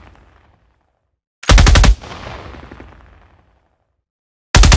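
Assault rifle firing short fully automatic bursts: one burst of several rapid shots about a second and a half in, its echo fading over the next second or so, then another burst starting near the end.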